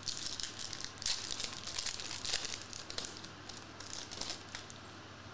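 Foil wrapper of a Topps Chrome trading card pack crinkling and tearing as it is ripped open by hand, with quick irregular crackles that die down near the end.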